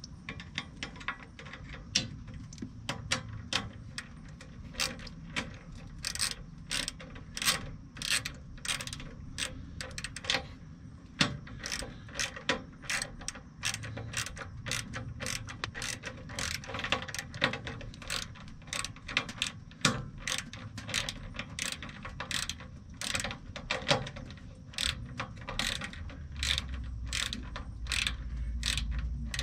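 Hand socket ratchet clicking in quick, irregular runs as a new bolt is run in and tightened.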